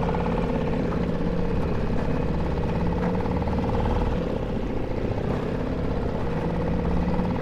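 Small Suzuki 2.5 horsepower outboard motor running steadily under way, pushing a 12-foot jon boat at an even throttle.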